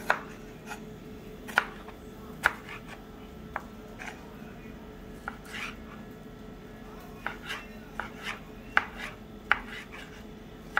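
Kitchen knife dicing tomato on a wooden cutting board: sharp knocks of the blade on the board at an irregular pace, about a dozen strokes, some a second or more apart.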